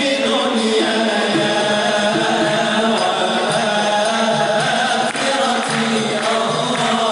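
A group of men singing Moroccan madih and sama', devotional chant in praise of the Prophet, into microphones. The melody is held without a break.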